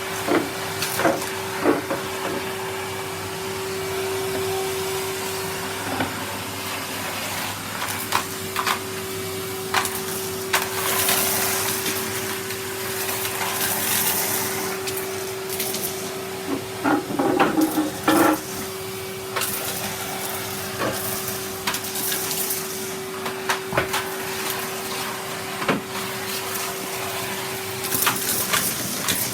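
Vacuum cleaner running steadily with a constant hum, with scattered clicks and rattles as bits of crushed hazelnut shell are sucked up, and a few brief bursts of higher hiss in the middle.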